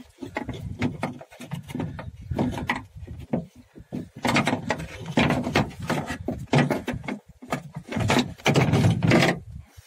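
Kia Cerato's metal door check being worked out through an opening in the bare steel door shell: a run of knocks, scrapes and rattles against the sheet metal, busier in the second half.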